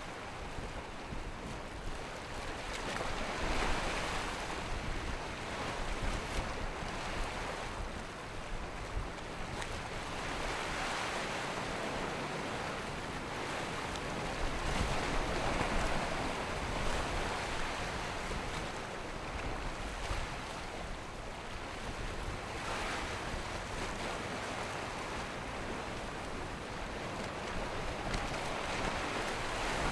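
Rushing, splashing water of a Riva 75 Perseo motor yacht's bow spray and wake running at speed, with wind rumbling on the microphone. The hiss of the water swells and eases several times.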